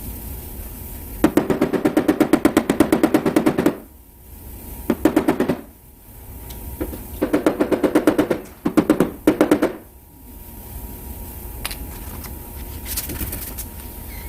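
Rapid back-and-forth strokes of a hand sanding block rubbing over body filler on a car panel, about eight strokes a second, in four bursts with short pauses between.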